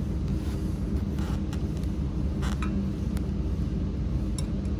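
Steady low hum of running welding equipment, with a few short clicks and brief hisses.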